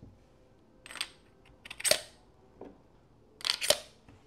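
Metal air cartridges being pushed into the AEA Harpoon PCP pistol as it is loaded: a handful of short, sharp mechanical clicks and clacks, two of them close together near the end.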